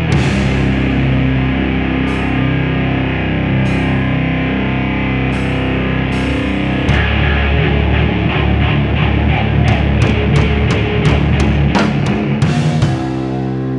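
Rock band playing live: distorted electric guitars over a drum kit with cymbal crashes. About eight seconds in the drums pick up a fast, even beat, and near the end the band drops back to a held, ringing chord.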